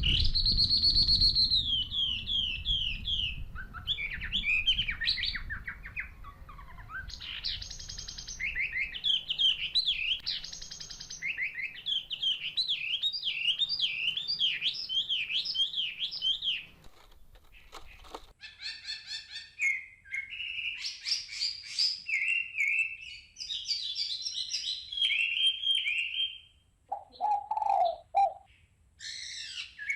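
Small birds chirping and singing in quick, repeated trills and warbles, with a lower call near the end.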